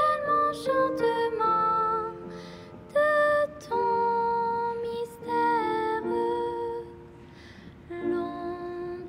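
A girl singing a slow, gentle song: held notes in short phrases, with a pause about two-thirds of the way through.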